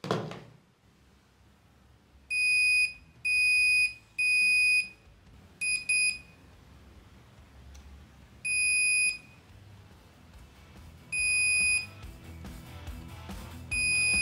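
Digital multimeter's continuity buzzer beeping as test probes touch the metal plates of a homemade electrolysis electrode stack: about eight high, even beeps, most about half a second long, two of them short and close together. Each beep marks a closed circuit between the probed points. A short thump comes right at the start.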